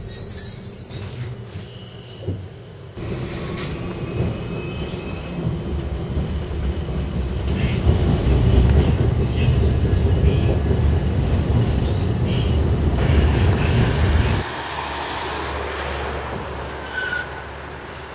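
Siemens ULF low-floor tram running along the track, a continuous rumble of wheels and running gear heard on board. About two-thirds of the way through it drops abruptly to a quieter tram sound, with a brief wheel squeal near the end.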